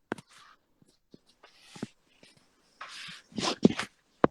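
Scattered sharp clicks and short bursts of rustling noise, with a loud click near the end.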